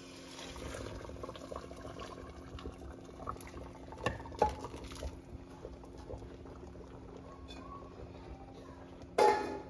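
Boiled beef and its broth poured from a saucepan into a pot of peanut stew: liquid pouring and splashing, with a couple of sharp knocks about four seconds in, then a quieter steady simmer. A short louder burst of noise comes near the end.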